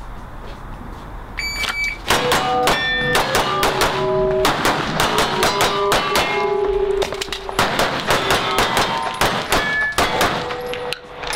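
A shot timer beeps, then a Taran Tactical Pit Viper 2011 pistol fires a fast string of shots for about eight seconds. Steel targets ring out with the hits.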